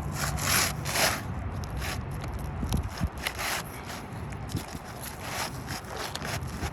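Gritty scraping and rubbing on asphalt roofing, in about six irregular strokes over a low rumble.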